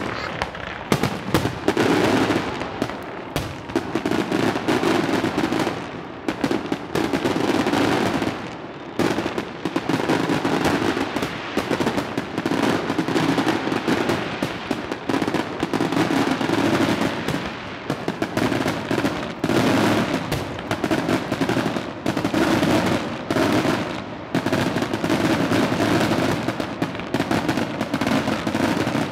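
Aerial fireworks display: shells bursting in rapid, overlapping volleys of bangs and crackle, with hardly a gap between reports.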